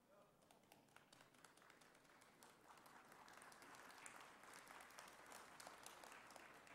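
Faint audience applause: scattered claps that thicken into steady clapping about halfway through, then tail off at the end.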